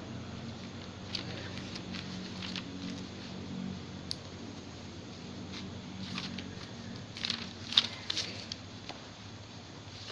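Quiet railway-platform ambience: a low steady hum with scattered faint clicks and rustles, and a sharper cluster of clicks about three-quarters of the way in.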